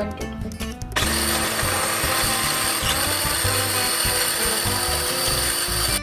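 Small electric food chopper switched on about a second in, its motor running steadily as it chops onion, bell peppers and a green chilli.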